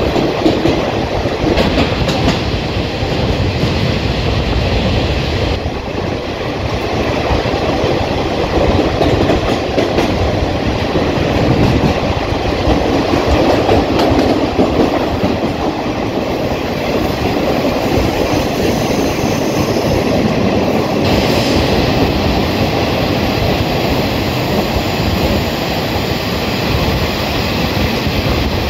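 Passenger train running at speed inside a tunnel, heard from an opening in the coach side: a loud, steady rumble of wheels on rail, with occasional clicks as the wheels pass over rail joints.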